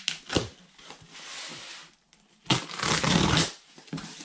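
Knife slitting the packing tape on a cardboard box, with a few short scrapes, then the cardboard flaps scraped and pulled open. The loudest part is a second of scraping and rustling that starts about two and a half seconds in.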